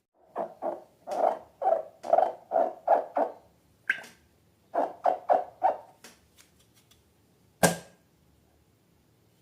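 Slime and balloons being worked by hand: a run of short, quick squishing and crinkling noises, about two to three a second, pausing briefly in the middle, with one sharp click near the end.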